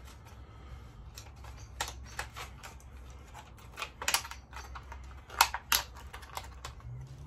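Small plastic and cardboard packaging of a spark plug thread-repair insert kit being handled and opened by hand: irregular light clicks and crackles, with a few sharper snaps about two, four and five and a half seconds in, over a low steady hum.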